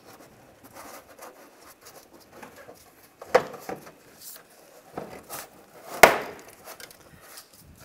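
Plastic inner fender liner of a Toyota Corolla being flexed and pulled away from the bumper by gloved hands, with rubbing and scraping and two sharp plastic snaps, about three seconds in and about six seconds in, the second the loudest.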